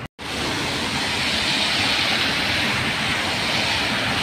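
Cars driving on a rain-soaked road: a steady hiss of tyres through surface water, swelling slightly about a second in. The sound cuts out for a moment right at the start.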